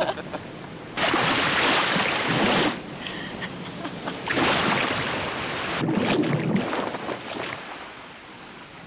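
Ocean surf washing onto a beach in two rushing swells, the first about a second in and the longer one from about four seconds, fading away near the end.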